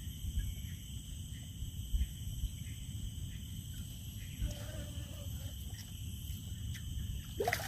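Outdoor natural ambience: a steady high-pitched insect drone over a low rumble, with a short rising call near the end.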